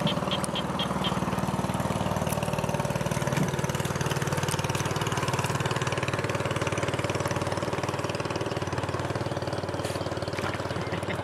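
Small boat engine idling steadily.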